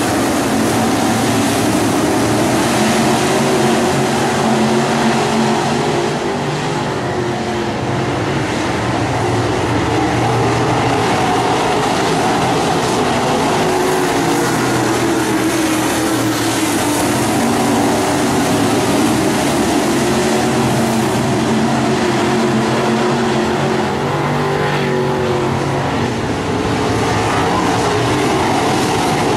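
A field of crate late model race cars' V8 engines running hard on a dirt oval. The engine notes swell and fade as the cars pass through the turns, with no break.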